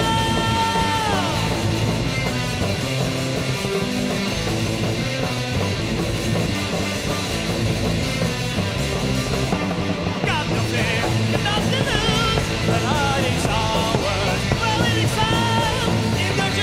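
Loud heavy metal track with distorted electric guitars, bass and drums. A held high note slides down in pitch about a second in, and wavering lead lines come in from about ten seconds.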